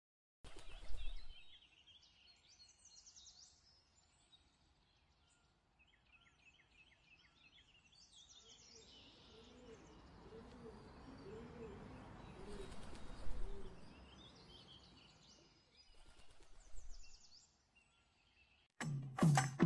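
Small birds chirping and calling over faint outdoor ambience, with a soft low thump about a second in. Near the end, music with sharp, evenly spaced percussion strikes starts abruptly.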